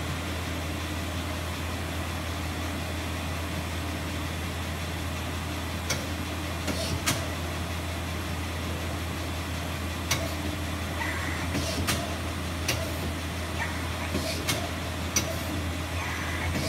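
Steady low machine hum with a constant background whir. From about six seconds in, scattered sharp clicks and ticks come every second or so at irregular spacing.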